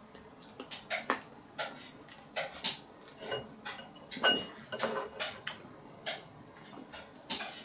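Someone chewing dry, hard prosphora (consecrated bread): quiet, irregular crunches and clicks.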